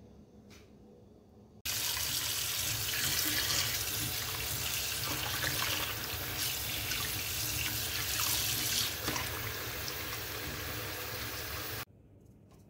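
Kitchen tap water pouring into a plastic container of hilsa fish pieces in a steel sink while a hand rinses and rubs them. It starts suddenly about two seconds in, runs steadily, and cuts off abruptly near the end.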